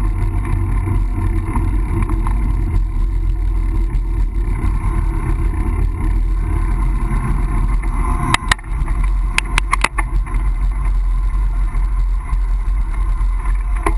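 Steady rumble of a bicycle ride picked up by a GoPro: wind on the microphone and road noise, with a short run of sharp clicks between about eight and ten seconds in.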